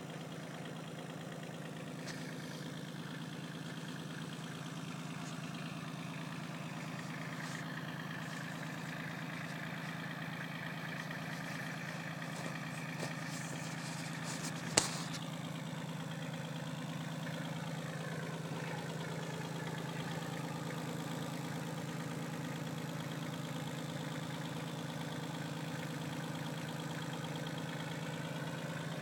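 Kubota B16 compact tractor's three-cylinder diesel engine running steadily, with a single sharp click about halfway through.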